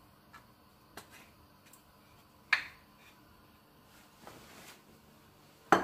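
Glass olive-oil bottle being handled, capped and set back down on the kitchen counter: a faint click, then two sharp knocks, one about two and a half seconds in and one near the end, with a soft rustle between.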